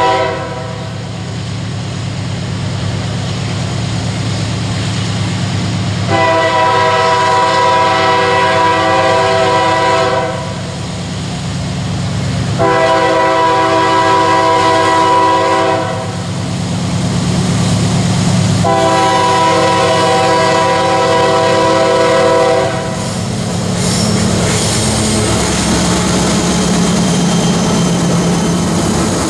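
Diesel freight locomotive's multi-note horn blowing repeated blasts: one fading out at the start, then three more of about three to four seconds each, a few seconds apart. The locomotive's engine rumble runs underneath and grows louder as the CSX locomotives draw alongside near the end.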